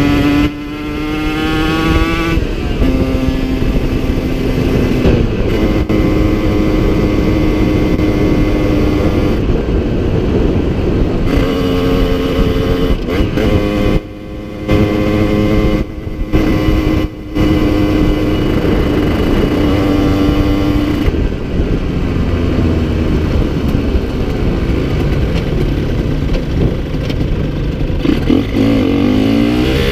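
Yamaha TZR50 two-stroke single, bored to 70cc with an Airsal kit, Polini CP21 carb and Technigas exhaust, running under way: the engine note climbs, drops back as it shifts up, holds steady at a cruising pitch and climbs again near the end, with a few brief cuts in the sound mid-way and wind rush behind it. The engine is down on power with a worn-out top end.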